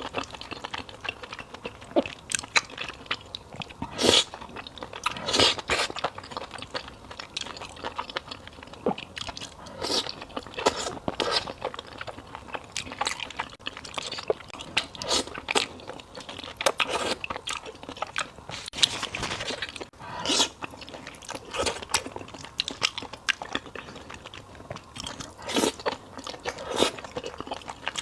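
Close-miked eating of fried beef noodle soup: steady chewing with irregular wet smacks and crunchy bites.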